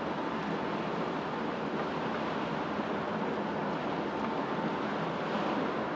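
Steady wash of wind and churning water with a faint low engine drone from tugboats pushing a large ship away from the pier.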